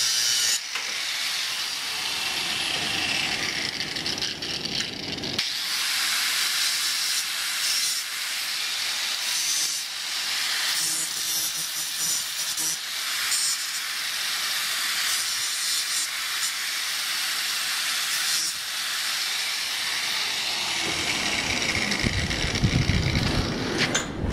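Handheld electric angle grinder grinding flat steel held in a bench vise: a steady hissing grind that rises and eases as the disc is pressed on and lifted. Near the end the grinding gives way to low bumps and rumbling.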